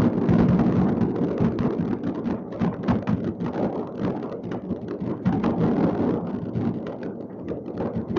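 Many distant fireworks going off across a city at once: a dense, unbroken stream of overlapping bangs and crackles with no pause.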